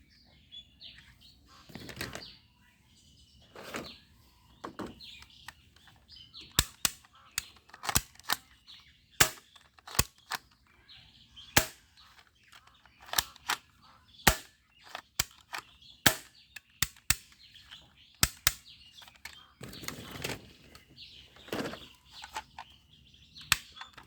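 A long series of sharp snaps from a toy bead-shooting gun being fired, at irregular intervals of roughly half a second to a second, mixed with a few duller knocks from the toy being handled.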